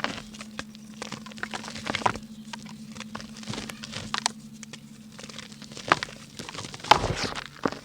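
Dry pink mud being crumbled: scattered small crackles and crumbly crunches, with a sharper crack about seven seconds in. A faint steady hum runs underneath and stops about six seconds in.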